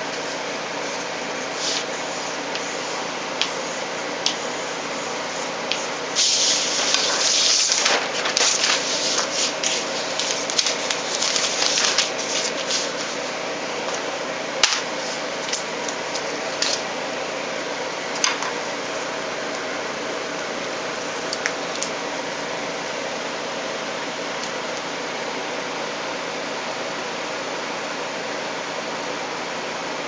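Backing being peeled off a strip of adhesive tape: a loud tearing hiss about six seconds in that lasts about two seconds, then crackling and rustling of the tape and paper, and a few sharp clicks as the strip is handled and pressed down, over a steady background hum.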